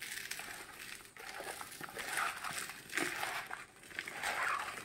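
Hand tossing diced raw mango with coarse salt in a plastic bowl: the firm mango pieces and salt grains rustle and crunch against each other and the bowl in uneven surges.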